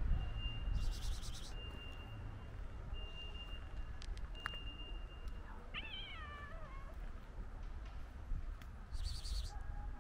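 A cat gives one short meow, falling in pitch, about six seconds in, over a low outdoor rumble. Two short hissing bursts come near the start and near the end, and a thin steady high tone comes and goes in the first half.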